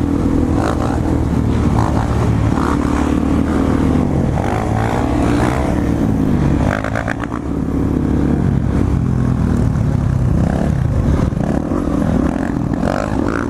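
Dirt bike engines running on a group ride, their pitch rising and falling repeatedly as the throttle is opened and closed.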